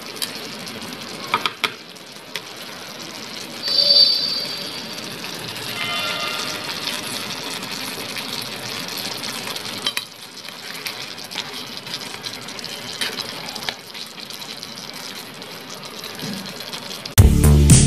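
A pan of pork, baby corn and potato simmering in cornstarch-thickened gravy gives a steady sizzling, bubbling hiss. A nylon spatula clicks against the nonstick pan a few times near the start, and brief high-pitched tones sound about four and six seconds in. Music begins right at the end.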